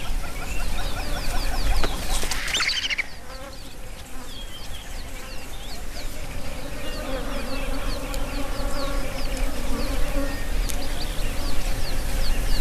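Flies buzzing in a steady drone, the swarm that gathers on a carcass, with quick high chirps throughout and a brief louder call about two seconds in.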